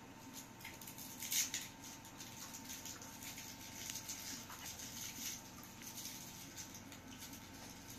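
Plastic wrapper on a hard candy crinkling as it is handled and unwrapped: a run of small, irregular crackles, with one sharper, louder crackle about a second and a half in.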